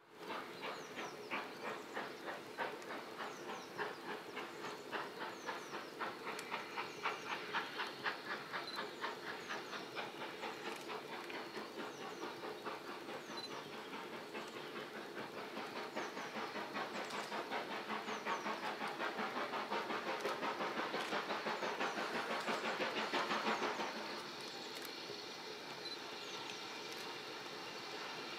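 Steam locomotive 80032, a BR Standard Class 4 2-6-4 tank engine, working towards the listener with a steady rhythmic chuff of exhaust beats, about two to three a second, growing louder as it approaches. About 24 seconds in the beats stop abruptly, leaving a softer steady rumble of the train on the move.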